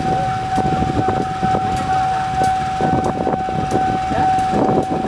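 A steady, single-pitched warning tone like a siren sounds without a break, over irregular low rumbling and scattered clicks.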